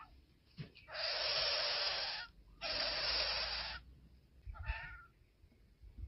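Nestling bird hissing twice, each a long breathy hiss of over a second with a short gap between, followed by a short call near the end.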